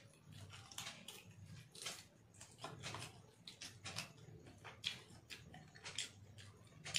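Close-up eating sounds: a string of soft, irregular chewing clicks and lip smacks as rice and chicken are eaten by hand, with fingers mixing rice on a glass plate, over a faint low hum.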